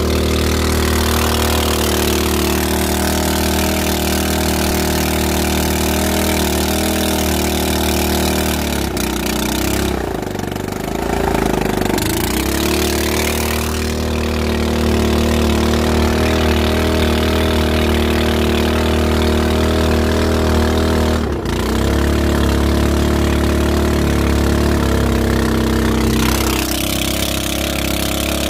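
Small stationary engine driving a boat's long-shaft propeller, running steadily under way; its note shifts and dips briefly about ten seconds in and changes again around twenty-one seconds.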